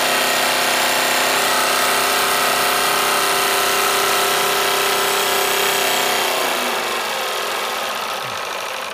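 Small model steam engine in a steamboat, run dry on the bench, going fast and unloaded with a steady whir and hiss. About six seconds in the whir drops away and the engine winds down.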